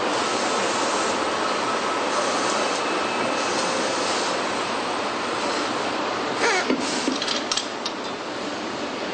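Steady machinery noise of a truck assembly hall, with a short falling squeak and a few sharp metallic clanks about six and a half to seven and a half seconds in.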